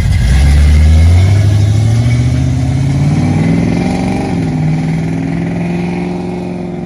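Classic first-generation Ford Mustang coupe's engine accelerating away, its pitch climbing, dropping at a gear change about four seconds in, then climbing again as the car fades into the distance.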